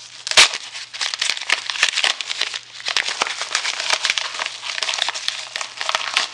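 Yellow padded paper mailer envelope crinkling and crackling as it is handled and opened, with a sharp knock about half a second in.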